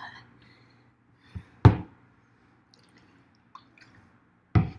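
Two sharp knocks: a soft tap and then a loud knock about a second and a half in, and another knock near the end, with a few faint clicks between.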